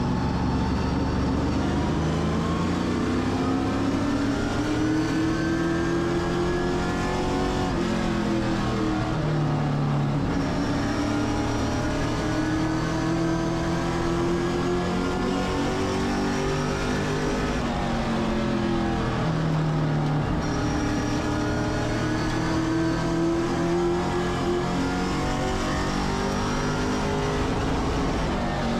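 Race car engine at racing speed, its pitch climbing steadily along each straight and dropping sharply as the driver lifts for the turns. This happens about every ten seconds, as on a short oval.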